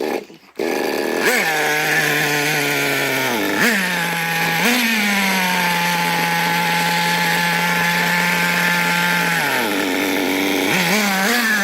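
Small nitro RC car engine running at a fast idle, its pitch jumping up briefly with throttle blips about one, three and a half and four and a half seconds in. It drops to a lower idle about nine and a half seconds in, then is blipped twice more near the end.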